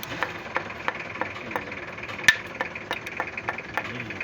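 Freshly rebuilt Isuzu 4HF1 four-cylinder diesel engine running just after starting, with a sharp regular tick about three times a second and one louder knock a little past two seconds in.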